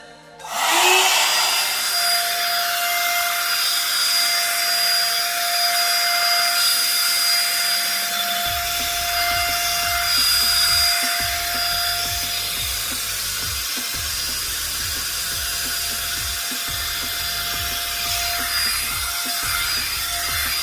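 One-step hot-air brush hair dryer switched on about half a second in, then blowing steadily with a steady motor whine.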